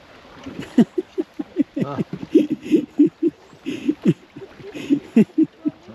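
A person laughing loudly and close by: a long run of short, pitch-bending 'ha' bursts, about three or four a second.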